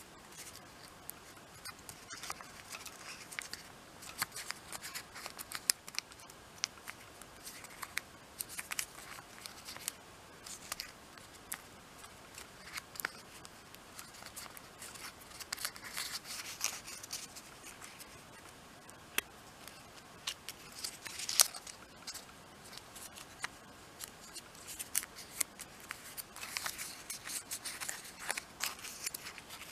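Origami paper being folded and pressed into creases by fingers: irregular crisp rustles and small crackles, with one louder crackle about two-thirds of the way through.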